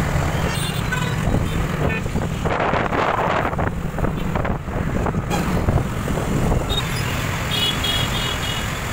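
Wind buffeting the microphone and road noise from riding a two-wheeler through city traffic, with a heavy low rumble throughout. A vehicle horn beeps a few times near the end.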